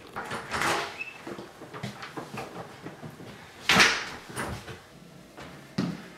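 A wooden cupboard or house door being handled: a series of knocks and clatters, with a loud rushing clatter about four seconds in. Sharp thumps of running footsteps on a wood floor come near the end.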